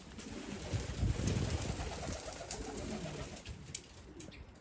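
Domestic pigeons cooing, a low wavering sound that is strongest a second or two in, with a few faint high ticks.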